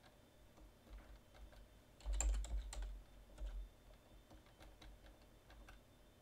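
Computer keyboard typing: faint, scattered keystrokes, with a quick run of keys about two seconds in.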